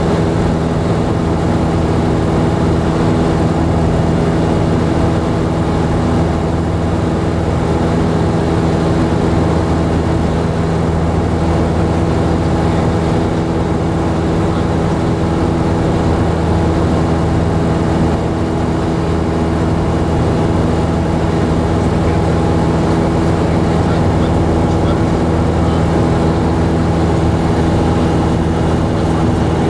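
Small propeller airplane's engine and propeller droning steadily at cruise, heard inside the cabin.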